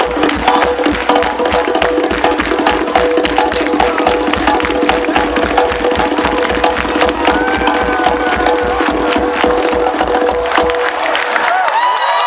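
Live band playing an instrumental passage of the reggae-pop song, with fast, dense drum and hand-percussion strokes under a held note. About a second before the end the drums drop away, and sung or crowd voices start to come in.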